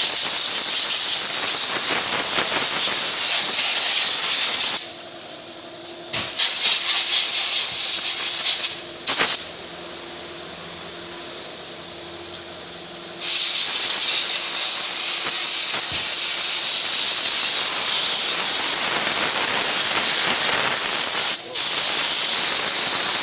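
Spray nozzle hissing in long bursts during engine-bay cleaning, cutting out about five and nine seconds in and starting again near the middle. A faint steady hum shows in the pauses.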